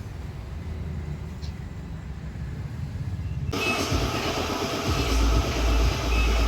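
Hot-air plastic welder switching on about halfway through, then blowing a steady rushing hiss of hot air, with low rumbling and a few thumps underneath.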